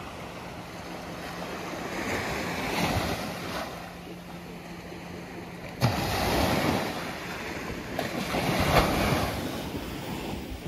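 Sea waves breaking and washing in, three surges, the sharpest one starting suddenly about six seconds in, with wind buffeting the microphone.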